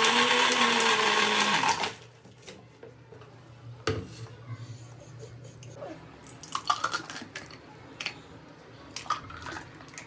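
Panasonic mixer grinder running on high, blending curd, sugar and ice cubes into lassi, then switched off about two seconds in. After it stops come scattered knocks and clinks of the steel jar and glasses as the lassi is poured out.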